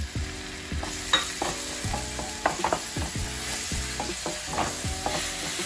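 Masala sizzling in a non-stick frying pan just after a little water is added, while a spatula stirs it, scraping and knocking on the pan about twice a second.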